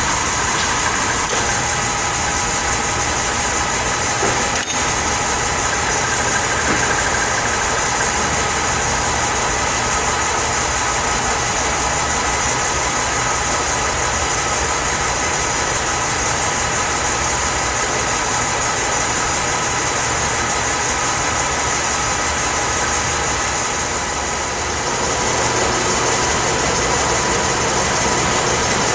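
Enco LG2080DS gap-bed engine lathe running under power, giving a steady mechanical whine with several steady tones. It dips briefly and shifts a little about twenty-four seconds in.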